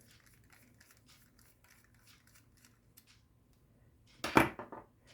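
Faint small clicks of a hand tool undoing the second of two small screws holding a 3D-printer extruder assembly, then a short, louder clatter of metal parts about four seconds in.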